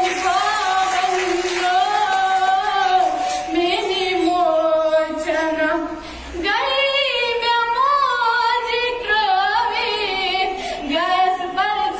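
A schoolgirl singing solo and unaccompanied: a slow, emotional song with long held notes that waver. She breaks off briefly about six seconds in, then goes on.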